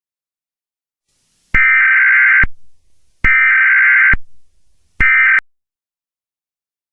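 Emergency Alert System SAME data tones: three bursts of warbling two-tone digital data, the first two about a second long and the last a short half-second one, each with a brief fading echo. Coming right after the spoken bulletin, they are the end-of-message code that closes the alert.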